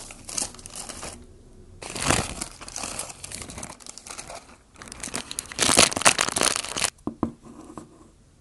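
Crinkling and rustling of a paper fast-food burger wrapper being unwrapped, in a series of short bursts with brief pauses; the loudest comes about six seconds in.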